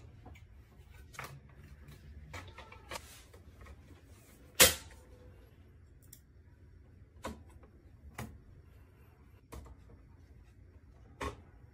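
Scattered sharp clicks and taps of small parts and tools being handled on a workbench, about seven in all, with one much louder sharp knock a little before the middle.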